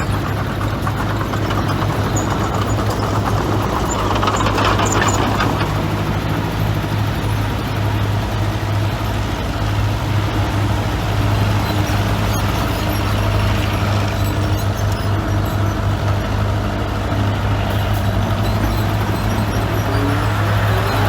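Heavy diesel engine of earthmoving equipment running steadily, with a louder, noisier stretch about four to five seconds in.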